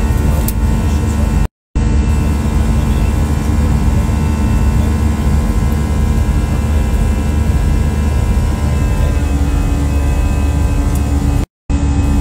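Jet airliner engines heard from inside the cabin while climbing after takeoff: a steady roar with a strong low hum and several steady tones. The sound cuts out briefly twice, about a second and a half in and near the end.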